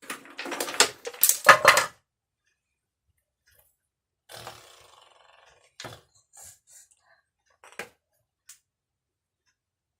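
Wooden toy blocks clattering: a loud rapid run of knocks in the first two seconds, then a few single knocks further on.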